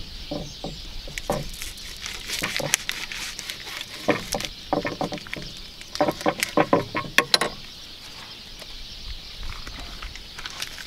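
Kitchen knife cutting raw bacon on a wooden cutting board: irregular bunches of quick taps and knocks of the blade against the board, thickest in the middle, over a steady high hiss.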